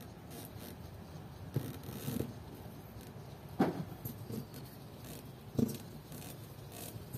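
Stock rubber handle grip being twisted and pushed onto a Yamaha NMAX scooter's handlebar by hand: faint rubbing and scraping, with four short knocks, the sharpest about three and a half seconds in.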